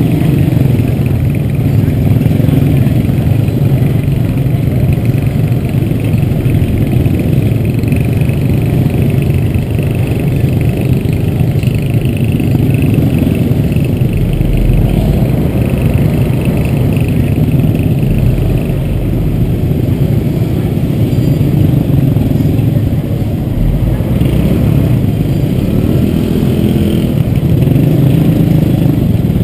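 Small motorbike and scooter engines running at low speed in a slow-moving queue, the nearest one close to the microphone and steady. One engine revs up near the end.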